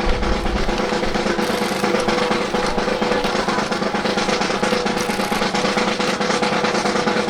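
Snare drum roll: a dense, rapid rattle of strokes held without a break.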